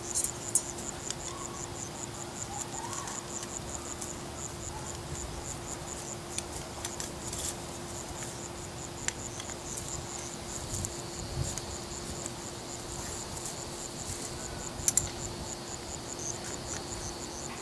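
Insects chirping in the grass in a rapid, even pulse, with a second steady high buzz joining about ten seconds in. A few faint clicks from the stake and pull fixture being handled.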